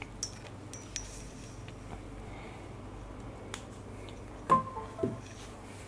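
Faint clicks and taps as a smartphone is handled and its USB cable is plugged into a laptop. About four and a half seconds in comes a short, sharper sound with a brief pitched tone.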